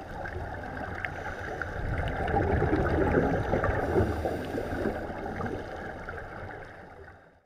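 Scuba divers' exhaled bubbles heard underwater as a muffled bubbling and gurgling. It swells louder for a few seconds in the middle, then fades and cuts off just before the end.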